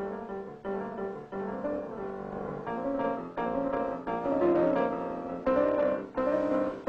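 Background cartoon music: a piano-led score dubbed onto the silent film, its notes changing every half second to second.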